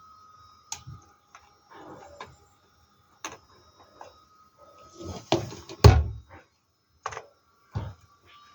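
Scattered clicks and knocks of hard plastic parts and tools being handled while a hair dryer is taken apart, with a heavier knock about six seconds in.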